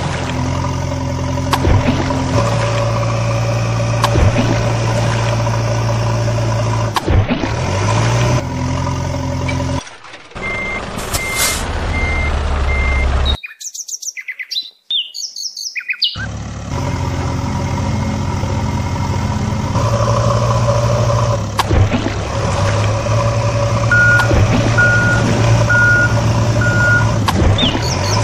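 Truck engine sound effect running steadily and stepping between pitches. A reversing beeper sounds twice, four beeps each time, the second run lower in pitch. Midway the engine drops out for a couple of seconds of bird chirping.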